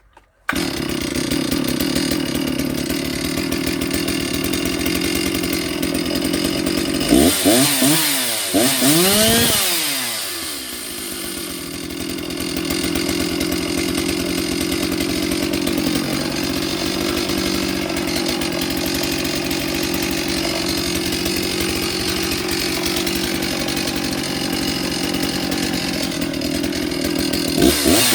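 Stihl MS 360 two-stroke chainsaw running: it idles steadily, is blipped up and down in several quick revs about seven to ten seconds in, settles back to idle, and revs again near the end.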